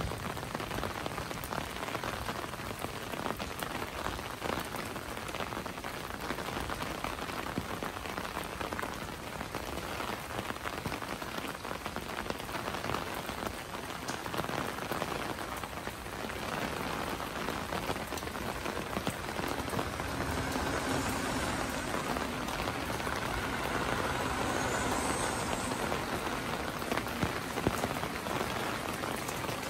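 Steady rain falling, a dense even hiss full of small drop ticks.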